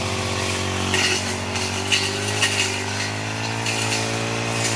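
Backpack brush cutter's small petrol engine running steadily, rising a little in pitch about a second in, as the cutting head is swung through grass and weeds, with repeated brief high hits as it slashes the growth.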